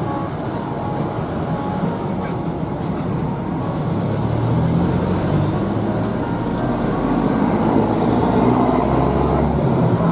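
Street traffic noise, steady and loud, with a low engine hum that comes in about four seconds in and stops shortly before the end.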